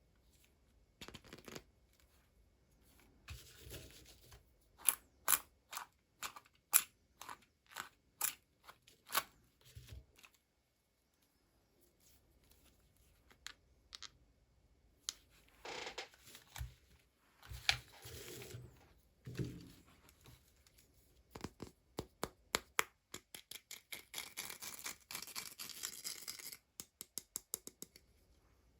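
Toy packaging being opened by hand: a run of sharp snips and clicks, a pause about ten seconds in, then more snips and a stretch of rustling and tearing with quick clicks near the end.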